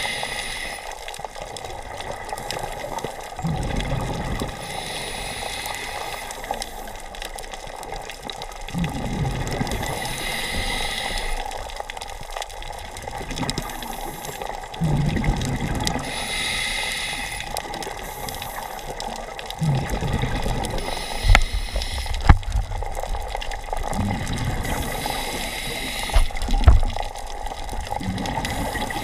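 Scuba diver breathing underwater through a regulator: a hiss on each inhale about every five to six seconds, alternating with a low rush of exhaled bubbles. A few sharp knocks come in the second half.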